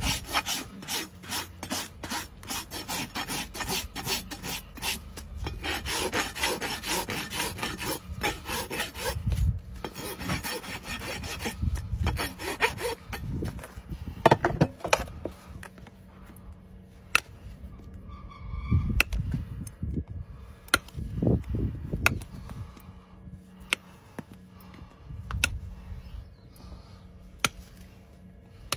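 Farrier's rasp filing a horse's hoof wall in a steady run of repeated scraping strokes. The rasping stops about halfway through, leaving scattered sharp clicks and a few dull thumps.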